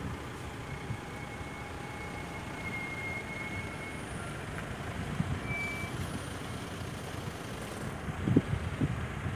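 Heavy truck engine running at a distance, with wind buffeting the microphone, hardest about eight seconds in.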